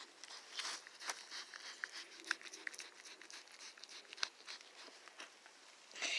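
White-tailed deer fawn licking and mouthing a person's hand, with scattered sharp mouth clicks and crackling, rustling dry leaf litter underfoot.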